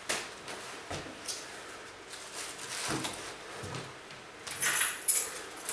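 Rummaging by hand: a few light knocks and clicks, then crinkly rustling that is loudest near the end.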